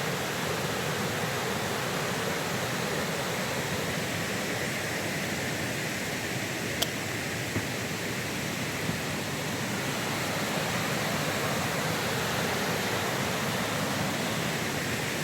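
Wagner Falls waterfall rushing: a steady, even wash of falling water that does not change.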